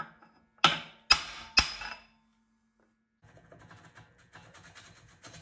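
Ball-peen hammer striking a steel punch to drive a stuck wet cylinder liner out of a Continental Z134 engine block: four sharp metallic blows about half a second apart, each ringing briefly. After a short gap, faint clatter follows.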